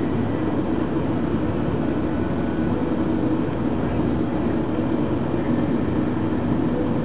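Steady, unchanging background hum with most of its weight low down, loud and even throughout, with no separate knocks or clicks.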